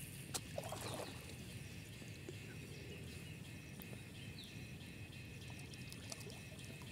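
Faint lakeside ambience: gentle water sounds under a steady faint high hum, with a sharp click shortly after the start.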